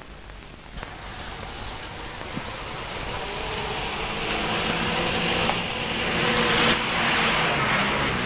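A car driving up and pulling in: the engine and tyre noise grow steadily louder, are loudest about seven seconds in, then fall away sharply at the end.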